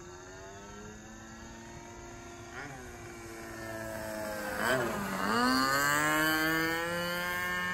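Engine and propeller of a SIG Astro Hog radio-control model airplane in flight, getting louder as it comes closer. Its pitch dips briefly about five seconds in, then climbs back.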